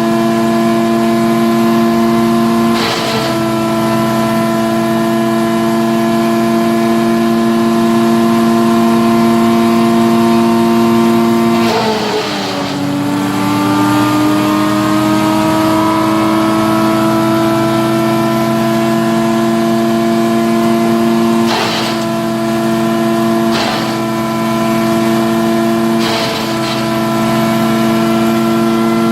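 Asplund Chuck'n Duck wood chipper running steadily, with a few brief bursts of chipping noise. About twelve seconds in, the engine pitch drops sharply as it is loaded down, then climbs slowly back over several seconds.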